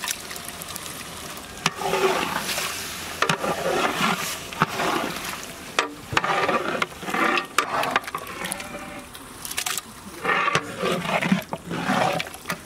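Long metal ladle stirring thick, wet mutton masala and curd in a large aluminium pot: irregular wet squelching and sloshing strokes, with a few sharp clacks of the ladle against the pot.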